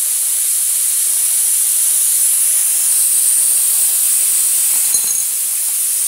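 Refrigerant gas hissing steadily out of an open line of a refrigerator's sealed system as it is purged with freon, flushing the remaining air out of the condenser and evaporator before recharging.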